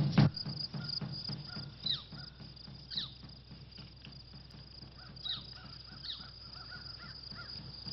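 Outdoor ambience: a steady high chirring of crickets or other insects, with scattered bird calls. Two louder descending calls come about two and three seconds in, and a quick run of short chirps follows later.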